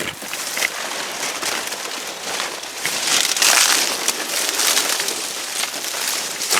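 Footsteps crunching through dry leaves and sticks as a hiker pushes through dense brush, with twigs snapping and foliage rustling and scraping past him. It is loudest about three to four seconds in.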